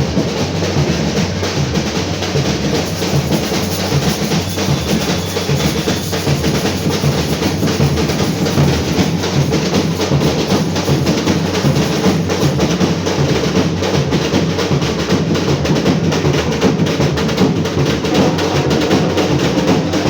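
Batucada samba percussion ensemble playing a dense, fast groove: deep bass drums under a continuous rattle of snare drums, loud and even with no break.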